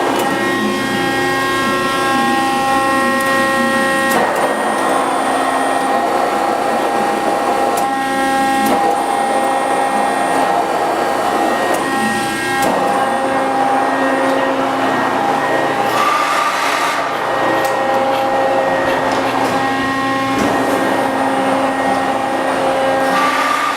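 Accurpress 60-ton CNC hydraulic press brake running under power: a steady whine over a hiss, its tone shifting every few seconds.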